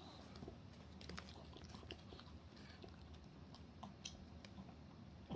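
Pomeranian licking and chewing the last of its chicken breast off a ceramic plate: faint, irregular small clicks and smacks of tongue and teeth.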